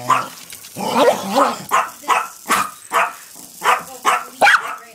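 Dog barking repeatedly at a Hexbug toy, short sharp barks about two a second.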